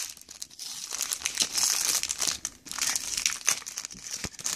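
A plastic packet of loom rubber bands being pulled open by hand: irregular crinkling and crackling of the plastic, with a couple of brief lulls.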